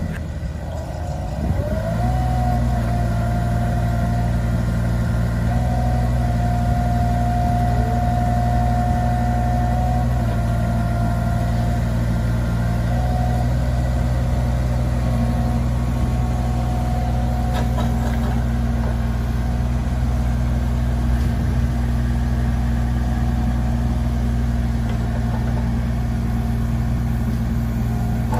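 2022 Cat 301.6 mini excavator's diesel engine running at a steady speed, with a high steady whine over it through the first half as the hydraulics work the boom, arm and swing. The engine note dips for a moment near the start, then steadies.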